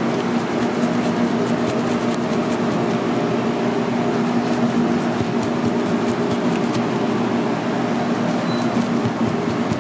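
Steady mechanical hum with a constant low drone, like a ventilation fan or refrigeration unit running, with faint light clicks over it.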